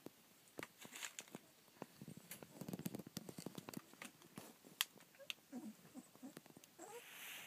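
Litter of 25-day-old rough collie puppies moving about on a fleece blanket: a faint, scattered patter of small taps and scuffs with rustling, busiest around three seconds in. A few short, faint squeaks come in the last couple of seconds.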